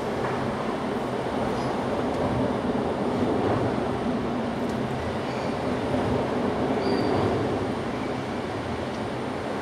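Steady low rumbling noise that swells a little through the middle, with a few faint, brief high chirps.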